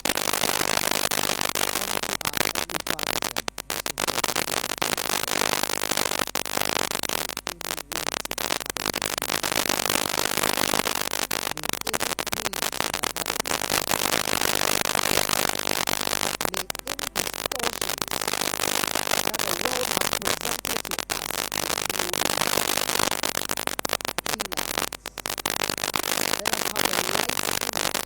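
Dense, continuous crackling noise made of many fine clicks, as loud as the surrounding speech, with a few brief dips.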